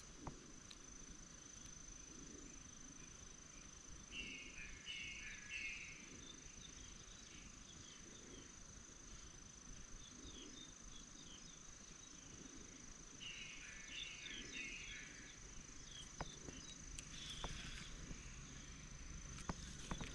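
Faint rural outdoor ambience: a steady high-pitched insect drone, with short bursts of chirping about four seconds and thirteen seconds in.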